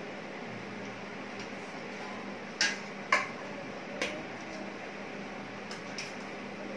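Stainless steel ladle, pots and plates clinking while food is being served. There are three sharp clinks around the middle and a couple of fainter ones near the end, over a steady low hum.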